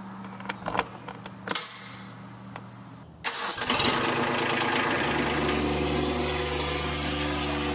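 A few sharp clicks over a low hum, then an engine cranks and catches about three seconds in and settles into steady running.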